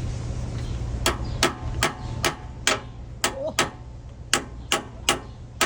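Hammer blows on metal, about two and a half a second and evenly paced, starting about a second in, each with a short metallic ring. A low steady hum underneath stops about two seconds in.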